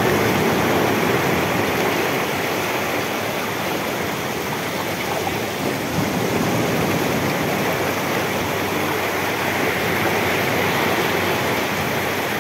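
Shallow stream rushing steadily over pebbles at its mouth on a shingle beach, with small waves breaking on the shore behind it.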